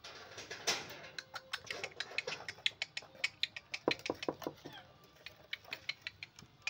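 Small dog biting and chewing a thin clear plastic container: a quick, irregular run of plastic crackles and clicks.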